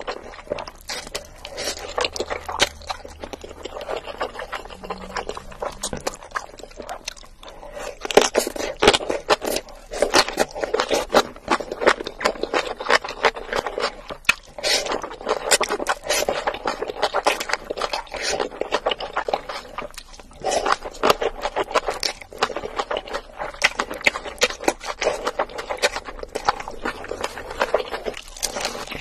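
Close-up eating sounds of black bean sauce noodles being slurped and chewed: a dense run of wet mouth clicks, busier and louder from about eight seconds in.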